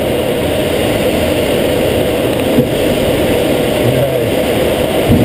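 Steady rush of airflow around a sailplane's cockpit in gliding flight, a dense low-pitched noise with no engine tone in it.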